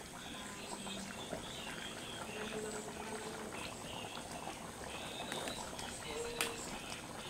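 Jackfruit in coconut milk bubbling and simmering in a metal pan while a metal ladle stirs it through the thick sauce, with one sharp clink of metal about six seconds in.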